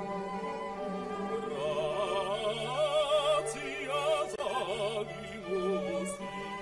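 Background classical music: an operatic voice sings a line with wide vibrato over sustained orchestral strings.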